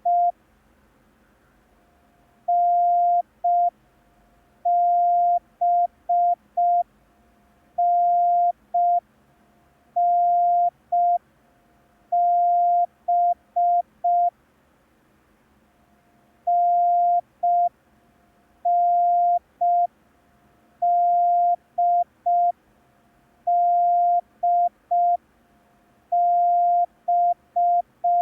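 Morse code practice tone: a single steady beep keyed in dashes and dots, sending five-letter groups made only of the letters N, D and B (a dash followed by one, two or three dots). There is a longer pause between two groups about halfway through.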